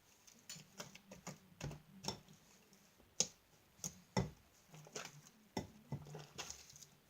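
Freshly activated fluffy slime being mixed and worked, giving irregular sticky clicks and squelches, several a second.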